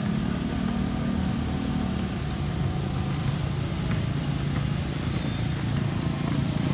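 Steady hum of road traffic, vehicle engines running continuously with no single loud event.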